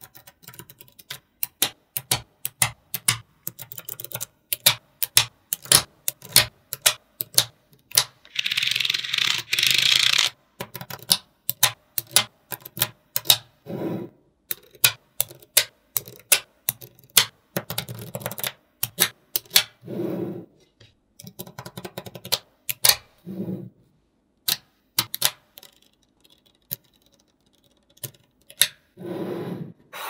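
Small magnetic balls snapping and clicking together as they are placed, with many sharp clicks in quick, uneven runs. A rattling rustle lasts about two seconds, starting about nine seconds in, and several soft dull rubbing sounds come later.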